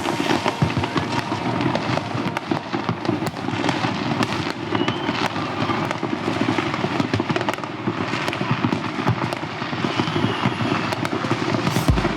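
Many aerial fireworks and firecrackers going off at once, a dense, unbroken crackle of overlapping bangs and pops.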